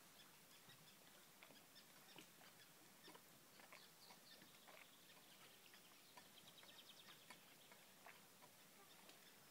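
Near silence: faint outdoor ambience, a soft hiss with scattered small ticks, and a faint rapid trill about six seconds in.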